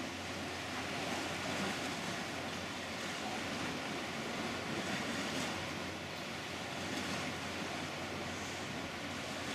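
Steady wash of the sea against the rocks mixed with wind noise on the microphone.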